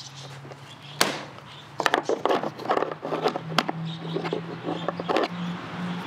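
Hard plastic parts and packaging being handled: a sharp click about a second in, then a run of clicks, rattles and scrapes, over a steady low hum.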